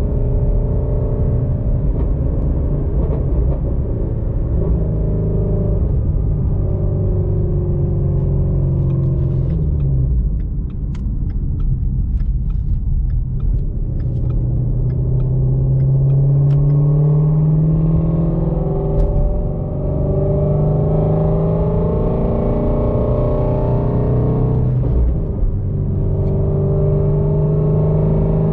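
Shelby Mustang V8 engine heard from inside the cabin, pulling steadily under throttle. Its note climbs slowly around the middle and dips briefly about ten, twenty and twenty-five seconds in.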